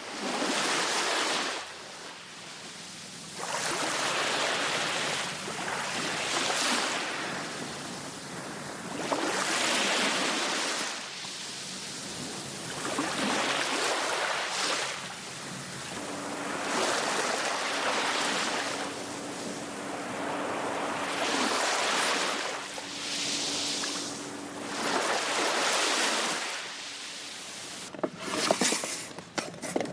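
Small waves washing onto the shore, one every two to three seconds. A faint steady hum comes in halfway through and fades out a few seconds later, and a few sharp clicks come near the end.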